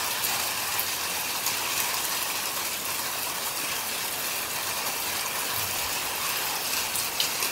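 Steady rain falling on a pond and the brush around it: an even, unbroken hiss.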